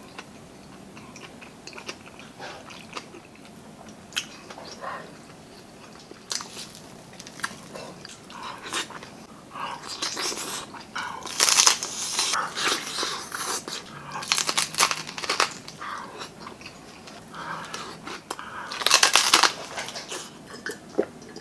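Close-miked eating: chewing and crunching bites into crispy deep-fried pork belly (lechon kawali) skin, with the loudest crunches about halfway through and again near the end.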